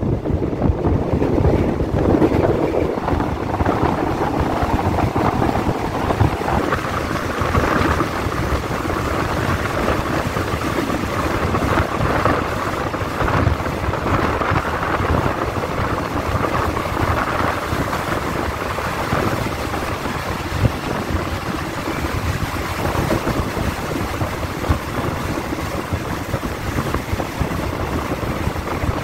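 Steady running noise of a moving passenger train heard at the open carriage window, with wind on the microphone.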